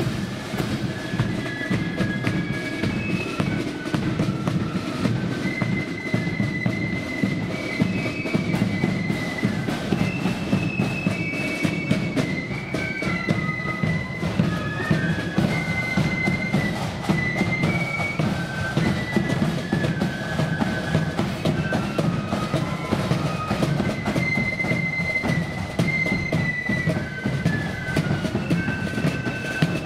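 Marching flute band playing a high, stepping tune on flutes over a steady beat of drums.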